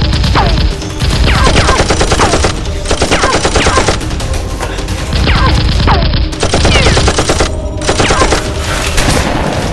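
Rapid machine-gun fire sound effects in runs of shots, dubbed in for toy foam-dart blasters. Short falling whistles cut in between the shots, and the firing dips briefly about a second in and again past the middle.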